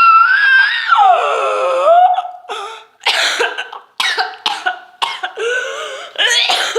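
A person holds a long, high-pitched squealing noise from the throat that drops in pitch about a second in and stops at about two seconds. From about three seconds in comes a run of coughs: the noise has irritated the throat.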